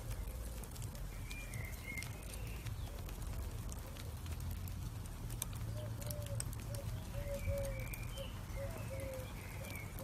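Bed of glowing charcoal embers crackling with scattered faint pops over a steady low rumble. Birds call in the background with short repeated calls, more often from about six seconds in.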